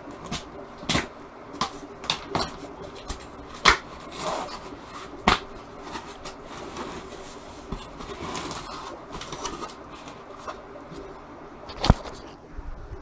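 Hands unpacking a cardboard shipping box: rustling of packing material with scattered sharp knocks and taps, the loudest a few seconds in and again near the end.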